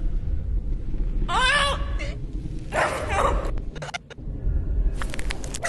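Advert soundtrack: a deep, steady rumble with two short, high-pitched strained cries, about a second and a half and three seconds in, and a few sharp clicks near the end, where the rumble cuts off.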